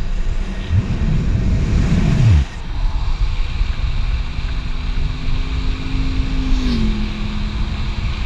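Wind rushing over the action camera's microphone and longboard wheels rolling on asphalt at speed. A passing car's engine hums steadily, then drops in pitch as it goes by, about two-thirds of the way through.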